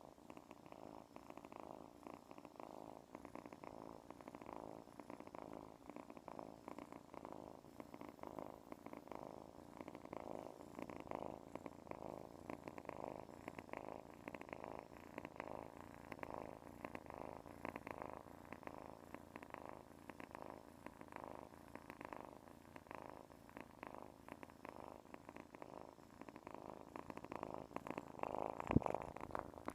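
Domestic cat purring steadily on a person's lap, the purr swelling and fading with each breath. A single sharp knock sounds near the end.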